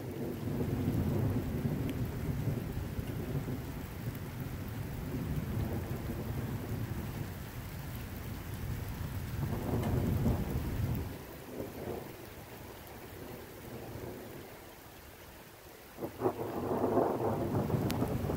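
Thunder rumbling over steady rain: a long rolling rumble that dies down after about eleven seconds, then a sudden sharp clap about sixteen seconds in that rolls into another loud rumble.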